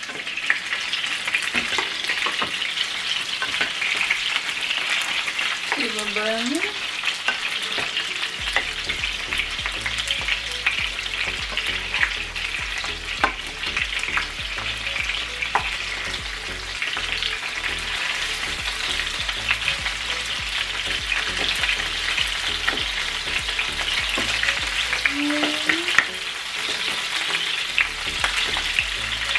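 Meatballs sizzling steadily as they fry in a pan, with scattered clicks and scrapes of a utensil turning them.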